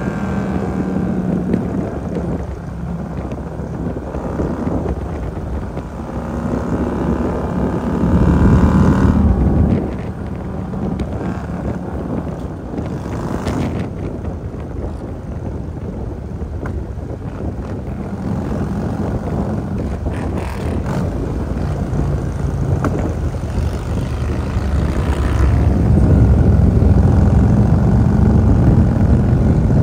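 Harley-Davidson Road King's V-twin engine running under way, with road and wind noise. The engine gets louder as the throttle opens about eight seconds in, drops back about two seconds later, and climbs again near the end.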